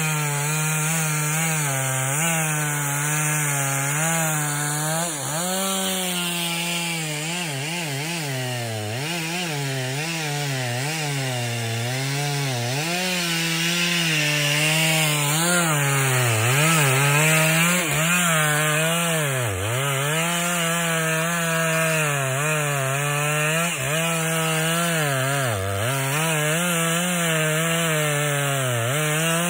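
Two-stroke chainsaw running at high revs while cutting into a tree, its engine speed dipping and recovering again and again as the chain bogs in the wood.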